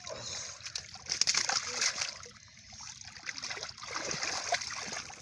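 Hands splashing and sloshing in shallow muddy water while groping for catfish, in irregular splashes that are loudest about a second in.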